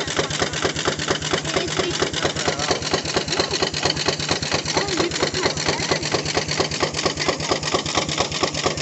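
13-horsepower Gaar-Scott steam traction engine running steadily while powering a sawmill, with a rapid, even beat of several strokes a second and a steady hum beneath.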